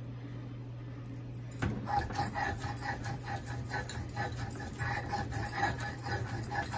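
Stone roller grinding chepa shutki bhorta on a flat grinding stone (shil-pata): a fast run of scraping strokes that starts about a second and a half in, over a steady low hum.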